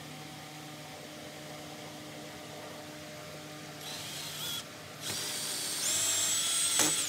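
Cordless drill running through a hole in a steel strap hinge into a wooden gate post. There is a short burst about four seconds in, then a louder run of about two seconds whose whine steps up in pitch before it stops.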